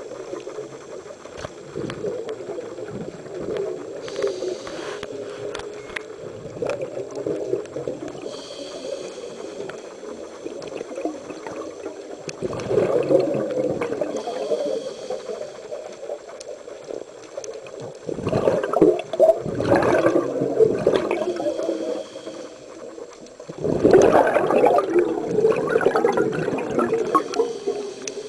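Scuba regulator breathing heard underwater: the bubbling rush of exhaled air comes in three long, louder bursts, about halfway through, at about two-thirds and near the end, with quieter bubbling between.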